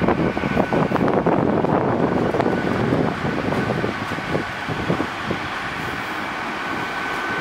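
A Great Western Railway Intercity Express Train (Class 800-series multiple unit) rolling slowly through the station pointwork. Its wheels click and knock over the rail joints and points for the first few seconds, then settle into a steadier rumble, with a faint steady high tone near the end.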